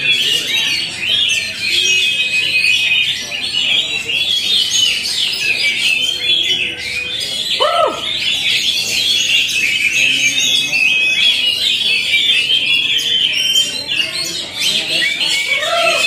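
Several caged oriental magpie-robins singing at once: a dense, continuous mix of fast, varied whistled phrases. A brief lower call rises and falls about eight seconds in.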